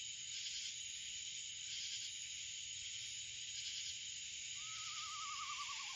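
Steady chorus of insects. Near the end, an owl gives a descending, quavering whinny.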